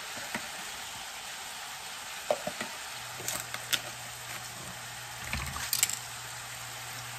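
Diced beef sizzling steadily in a hot cast-iron skillet, with a few sharp clicks and scrapes of utensils against the pan.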